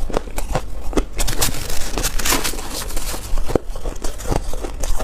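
Close-miked crunching and chewing of shaved ice and foam ice, with a spoon scooping through the ice: irregular crisp crackles, denser about two seconds in.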